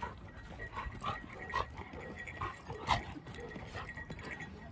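Dogs play-fighting, giving a handful of short vocal noises, the loudest about three seconds in.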